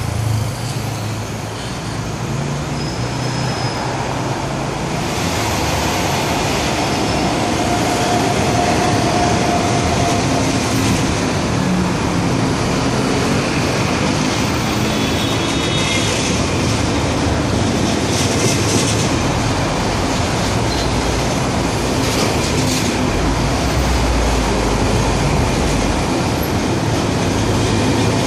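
Southbound KTT through train of double-deck coaches, hauled by a Lok2000 electric locomotive, running past: a steady noise of wheels on rails that builds over the first several seconds, then holds.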